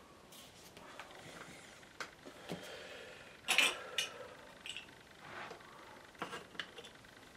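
A card mount being handled and pressed down over a watercolour painting: light rustles and scrapes of card on paper with a few sharp clicks, the loudest a little over three seconds in.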